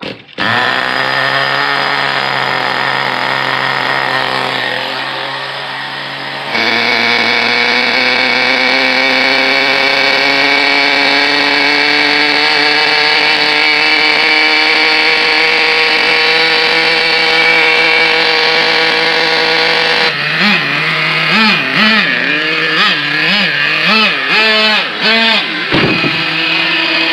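Small glow-fuel nitro engine of an RC car catching just after the start and then running at a high, steady idle. About six seconds in it gets louder. In the last seven seconds it is revved over and over, the pitch rising and falling one to two times a second.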